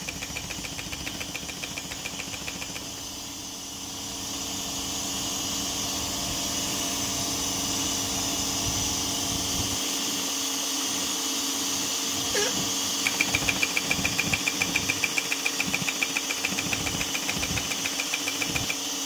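Ultrasonic sewing (welding) machine running with a steady hum while it seals a fabric strip without thread. A rapid rhythmic ticking, about five a second, stops for a while a few seconds in and resumes about 13 s in.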